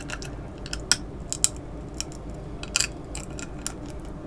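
Close-miked chewing of seafood-boil food, with several short, sharp mouth clicks and crunches spread through.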